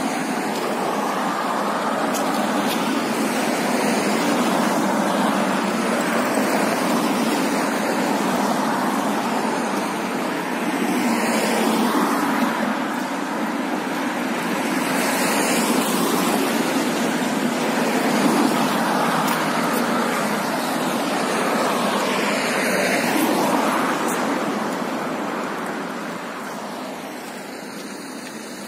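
Road traffic: a steady rush of tyre and engine noise, with several vehicles passing one after another and the noise easing near the end.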